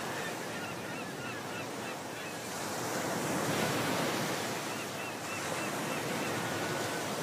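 Steady rush of wind and water with no speech. Two short runs of quick, high bird chirps, four or five notes each, come about half a second in and again about five seconds in.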